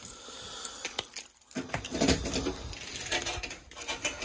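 Keys jingling and a lock clicking as the steel door of a fire alarm control panel cabinet is unlocked and swung open. Scattered small metallic clicks and handling noise, with a duller low rumble as the door moves.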